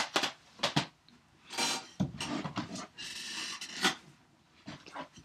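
Plastic DVD cases being handled and shuffled: a few sharp clacks near the start and another about four seconds in, with stretches of scraping and rubbing as cases slide against each other in between.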